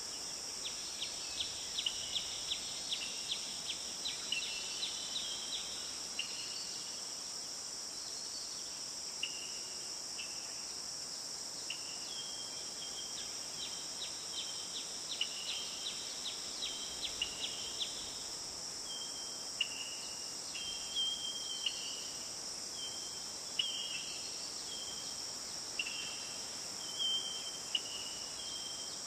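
Insects chorusing: a steady high-pitched drone, with short chirps and brief held notes repeating over it, some coming in quick runs of ticks.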